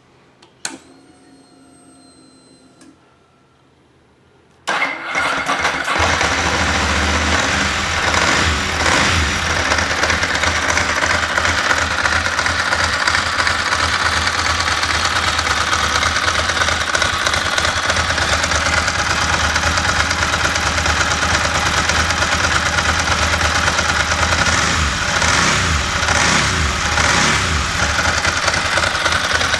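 Ducati S4R's L-twin engine on its stock silencers: a click and a faint steady whine for about two seconds, then the engine is started about four and a half seconds in and settles into a steady idle.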